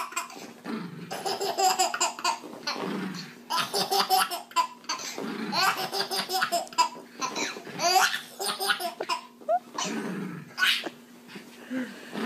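Baby laughing hard in repeated bursts of belly laughter.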